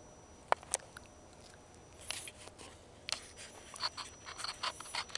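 Handling noise from a hand-held camera: scattered faint clicks and rustles against a quiet background, coming thicker and louder toward the end as the camera swings up.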